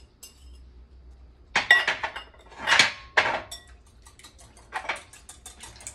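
A metal wire whisk scraping and clinking against a glass mixing bowl, with glass bowls knocking, in several short bursts of clinks with a brief ring. The whisk is mixing eggs into melted coconut oil and nut milk for a batter.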